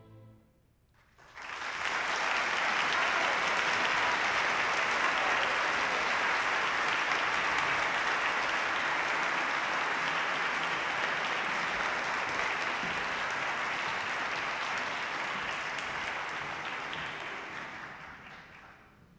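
A concert-hall audience applauding at length as an orchestral piece ends. The orchestra's last held note stops right at the start, and the clapping breaks out about a second later, holds steady, and dies away near the end.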